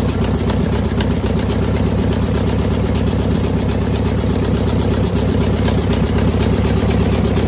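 Air-cooled VW flat-four with single-port heads and a single carburettor, test-running on an engine stand at a steady idle with a fine rapid ticking. Its heads are cracked and the 1-and-2 side has low compression, which the owner says made it seem like the whole engine was missing.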